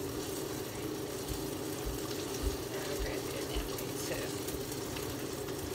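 Tilapia frying in hot oil, a steady sizzle with a low hum beneath it, and soft low thumps about twice a second in the first half.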